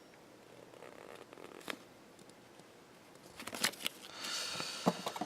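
Handling noises: faint rustling and a few light clicks, then louder clicks and a brief rustle of about a second, about four seconds in, as paper and small plastic parts are handled.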